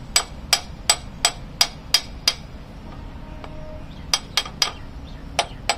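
Small steel hammer lightly tapping a gudgeon pin through a truck engine piston into its connecting rod: sharp metallic taps about three a second, seven of them, then after a pause of over a second five more near the end.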